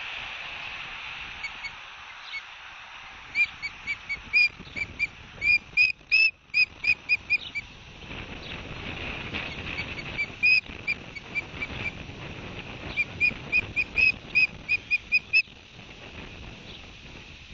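Osprey calling: series of short, high whistled chirps, about three a second, in two bouts, over steady wind noise.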